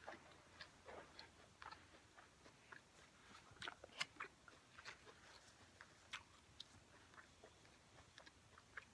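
Faint mouth sounds of a person chewing food: soft wet smacks and small clicks that come at irregular intervals, with a few louder ones about four seconds in.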